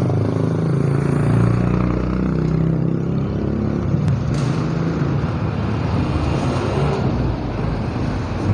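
A motor vehicle engine running nearby, a steady low hum that weakens after about three seconds, over continuous street traffic noise.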